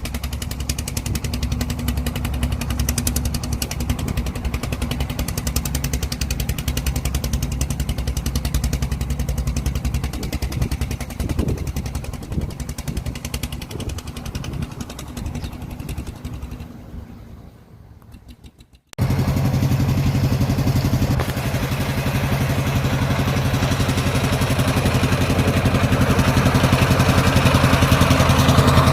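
Tractor diesel engine running with a steady, rapid pulsing beat that fades away. About two-thirds of the way in it cuts off abruptly and a louder, steady engine takes over.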